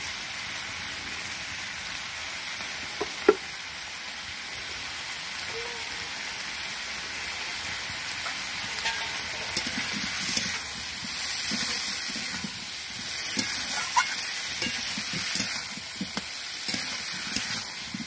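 Potatoes, onion and green capsicum sizzling in hot oil in a karahi, stirred with a metal flat spatula that scrapes against the pan. A single sharp knock about three seconds in, and the scraping and clinking get busier in the second half.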